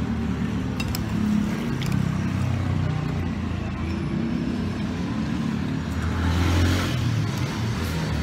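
Street traffic: engines running on the road, with one vehicle passing louder about six to seven seconds in. A few light clinks of metal utensils on a plate.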